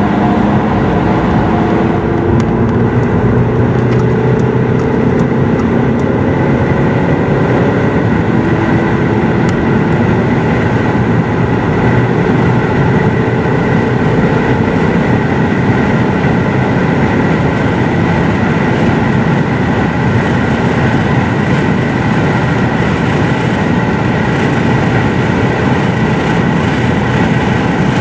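Audi A3 engine under hard acceleration at motorway speed, heard inside the cabin over heavy wind and tyre noise. The engine note climbs in the first half, with upshifts from fourth to fifth and to sixth gear, then settles into a steady drone at very high speed.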